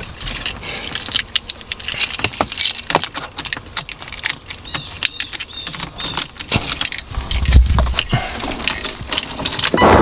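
A bunch of car keys jangling and clicking as a key is fitted into a BMW E36's ignition lock and turned on, with many small metallic clicks throughout. A dull low thump about seven and a half seconds in.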